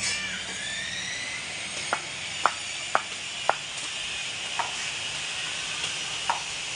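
Knife chopping meat on a wooden chopping board: sharp chops about every half second, then more spread out, over a steady high-pitched hiss.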